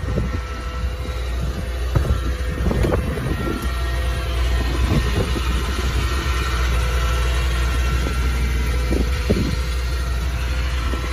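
A Ford F-450's 6.8-litre gasoline V10 idling steadily, with a few light knocks now and then.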